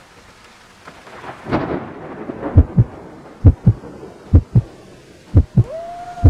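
Outro sound effect: a noisy rumbling swell, then a heartbeat of paired low thumps about once a second. Near the end a steady tone enters and slowly falls in pitch.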